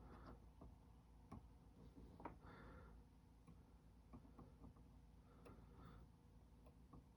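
Near silence, with a few faint scattered small clicks and ticks.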